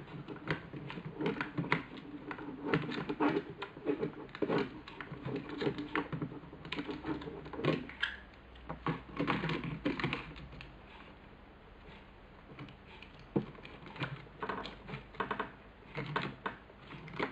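Irregular small clicks, taps and rattles of hard plastic parts handled and pressed together as a Nikon SB800 speedlight's flash head and zoom switch are fitted back in place. They thin out for a few seconds past the middle, then pick up again.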